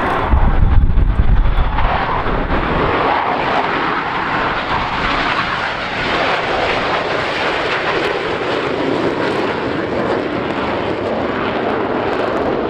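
Military jet aircraft making a low pass, its engine noise a loud, steady rush with more low rumble in the first second or two.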